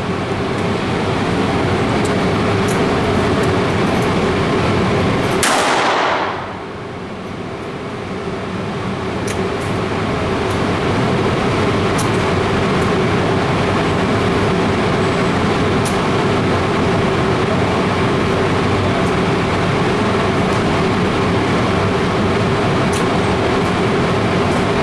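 Loud, steady rushing noise with a low hum underneath and a few faint ticks. About five seconds in, a short bright sweep falls in pitch, then the noise briefly drops and slowly comes back up.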